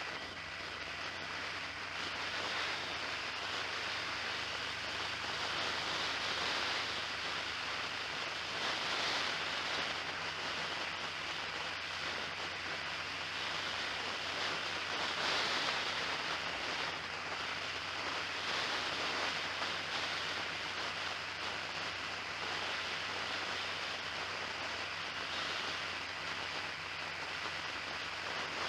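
Steady wind and road rush of a vehicle under way, picked up by an onboard microphone, with a low engine drone underneath. It swells a little a few times.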